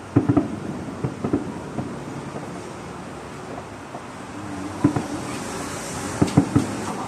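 Aerial firework shells bursting: a quick cluster of bangs right at the start, a few scattered bangs through the middle, and another rapid run of bangs about six seconds in, over a steady hiss.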